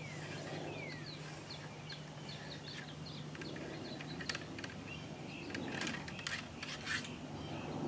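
Birds chirping throughout, with short falling whistles. About four seconds in, and again in a cluster a little later, come short sharp knocks and scrapes from the ramrod seating the over-powder wad down the flintlock shotgun's bore.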